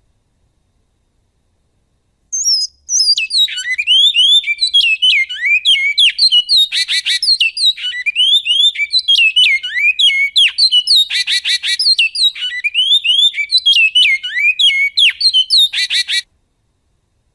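Great-billed seed finch (bicudo) singing its goiano-style song: one long run of rapid, clear slurred whistled notes with a few short buzzy notes mixed in. The song starts about two seconds in and stops abruptly near the end.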